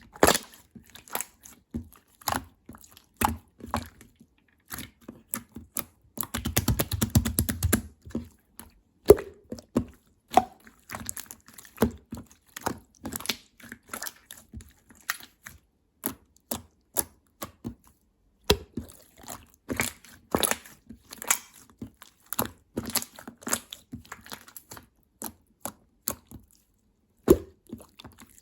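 Clear slime being squeezed and pressed by hand, making irregular clicks and pops, with a dense run of crackling about six to eight seconds in.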